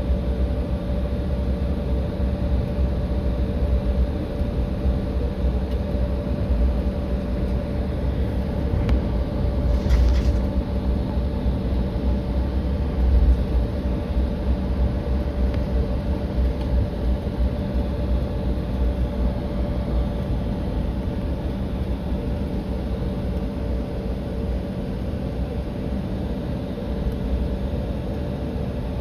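Cabin noise of a Republic Airways Embraer regional jet with its engines running: a steady low rumble under a steady fan hum. There is a brief hiss about ten seconds in.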